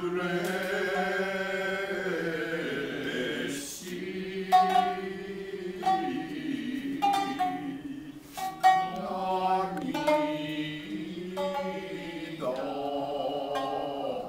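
Utazawa: shamisen song. Several voices sing long, drawn-out notes. From about four seconds in, sharp shamisen plucks come in between and under the held notes, roughly once a second.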